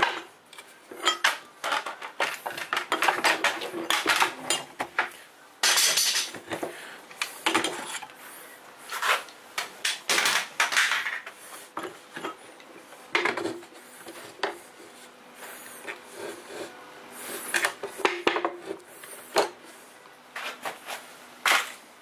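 Irregular clinks and knocks of metal being handled on a workbench: aluminium spacers and clamps being taken off and a steel drawer slide being shifted, some strikes ringing briefly.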